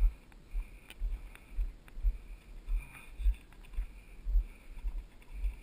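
Walking footsteps on a dirt trail, heard as dull low thuds about twice a second as each step jolts a body-worn action camera. A faint high-pitched buzz comes and goes behind them.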